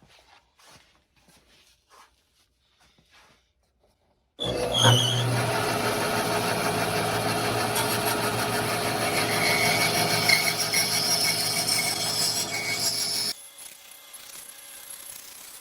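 Bandsaw cutting through the thick wooden side of a box swung on a circle-cutting jig's pivot. A few faint clicks come first. About four seconds in, the loud, steady cutting noise starts suddenly and lasts about nine seconds. It then stops abruptly, leaving a quieter steady hum of the saw running.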